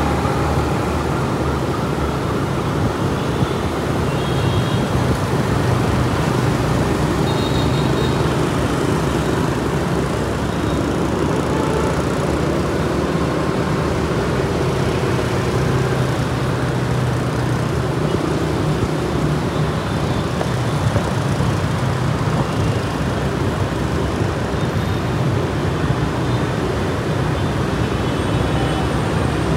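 Steady city road traffic, mostly motor scooters with some cars, heard while riding along among them: a continuous rumble of engines and tyres.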